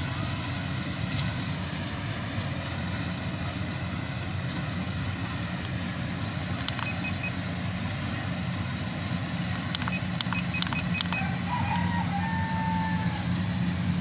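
Steady motor hum, with a constant low drone and a faint high whine. A few light clicks fall about seven and ten seconds in, and a short warbling tone comes near the end.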